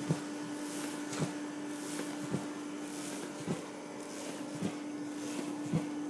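Steady machine hum at one pitch, with a soft knock repeating about once a second.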